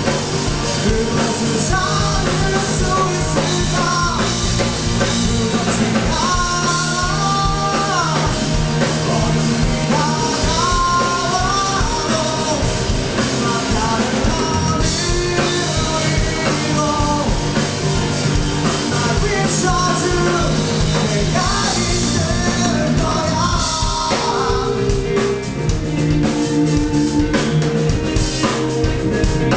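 Live rock band playing a song: drum kit, bass and electric guitars, with a bending melody line on top. About 24 seconds in the arrangement shifts to heavier cymbals and held chords.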